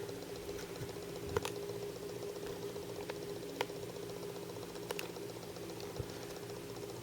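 A steady droning hum of unknown origin, made of several held tones, with a handful of sharp clicks and ticks over it.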